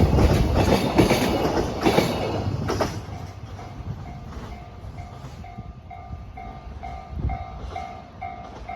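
Freight train's container wagons rolling past, wheels clacking over the rail joints, until the last wagon clears about three seconds in. The level-crossing alarm then keeps ringing on its own, an even ding about twice a second, as the crossing is still signalled after the train has gone.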